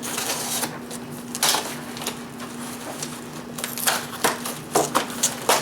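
A cardboard box being opened and its packaging handled: rustling and crackling, with several sharp crackles and taps in the second half.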